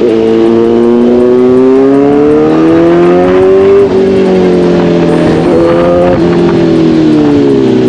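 Superbike engine under hard acceleration. Its pitch climbs steadily for about four seconds, drops sharply at a gear change, then rises briefly and steps down again. Near the end it falls as the throttle eases.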